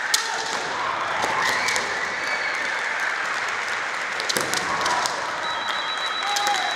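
Spectators clapping steadily throughout, a dense patter of many hands with a few sharper cracks standing out.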